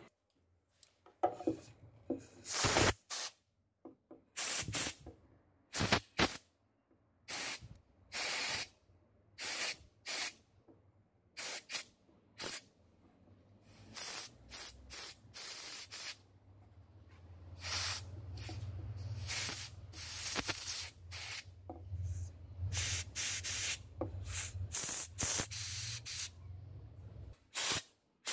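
Compressed-air blow gun from a small compressor giving many short, irregular blasts of hissing air at the wood. A low hum comes in about two-thirds of the way through.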